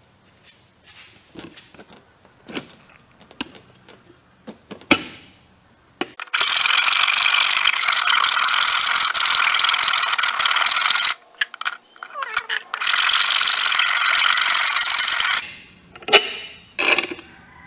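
Hand file scraping back and forth on a steel seat slider rail in two long spells, about five seconds then about three, filing it down so it fits the go-kart's seat mounting rails. Light metal clicks and knocks of handling come before and after.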